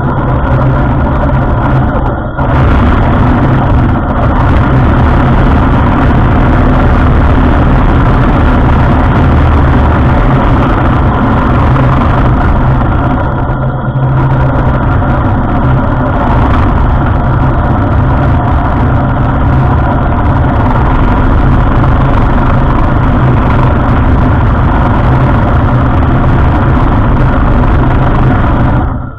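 Heng Long Tiger II radio-controlled model tank driving on pavement: its metal tracks clatter and rattle with a steady whine from the drive motors and gearboxes. The sound holds steady, with two brief dips, and cuts off abruptly at the very end as the tank stops.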